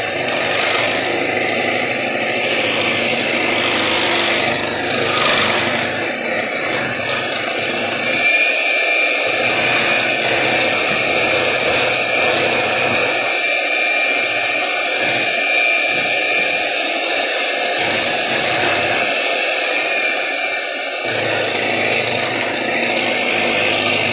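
Electric hand mixer running steadily, its beaters mixing cake batter in a glass bowl; a thin high whine rides on the motor noise through the middle stretch.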